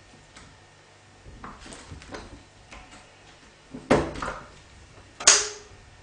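A round metal door knob rattling and clicking as a cat paws and grips it, then two louder clunks of the knob and latch near the end as the latch gives and the door comes open.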